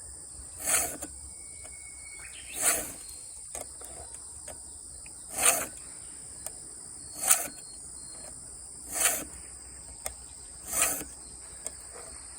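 Hand file rasping across the cutter teeth of a Husqvarna Rancher 450 chainsaw chain during sharpening: six single strokes, about one every two seconds. Insects trill steadily throughout.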